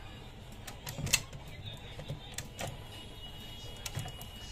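Scattered clicks and knocks of plastic and metal parts inside an opened HP LaserJet CP1025 color laser printer as a screwdriver and fingers pry and handle them, the loudest knock about a second in.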